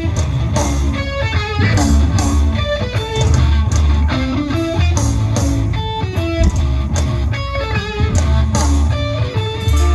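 Rock band playing an instrumental break: a lead electric guitar plays a run of quick notes over bass and drums, with no singing.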